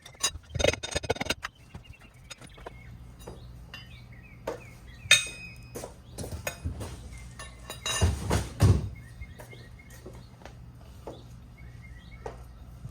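Small portable 150 PSI tire compressor running with a steady low hum as it feeds air into a ride-on mower tire that has not yet seated on its rim. Metallic clanks and knocks come around a second in and again about eight seconds in, with a sharp click near the middle, and birds chirp.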